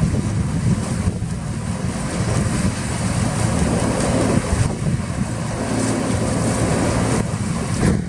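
Deutz-Fahr 6090 HTS combine harvester running at working speed while its unloading auger empties grain into a trailer: a steady, dense mechanical noise that is heaviest in the low end.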